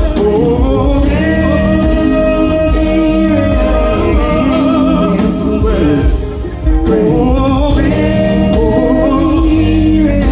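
Live R&B band playing, with a singer's long, wavering held notes over the band.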